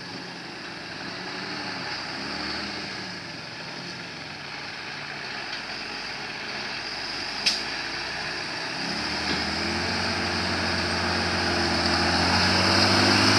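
Diesel engine of a Volkswagen truck pulling slowly, its revs rising and falling, and growing louder as it comes closer. One sharp click about seven and a half seconds in.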